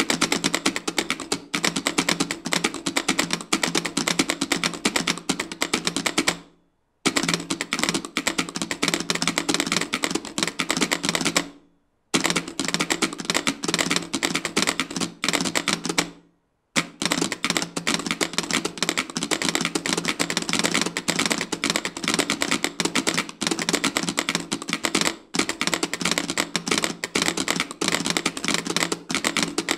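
Six telegraph keys clicking rapidly and densely together, their levers moving with no hands on them, tapping out tweet text in a Morse-like clatter. The clicking stops briefly three times.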